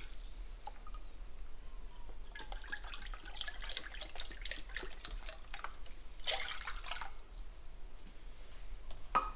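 Chicken broth heating in a pot on medium-high heat, bubbling with scattered small pops and drips as it comes back up toward a simmer, with louder bursts about six seconds in and near the end.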